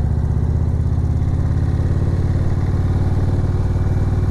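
Motorcycle engine running steadily at an even pitch while the bike rides along.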